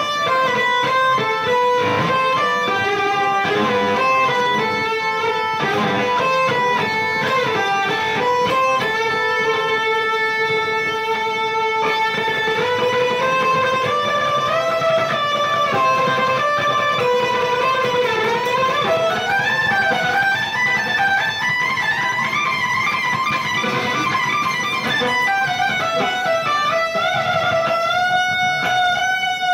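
Electric guitar played through an amplifier head and speaker cabinet: a melodic line of single notes, with a long held note and notes sliding up and down in pitch.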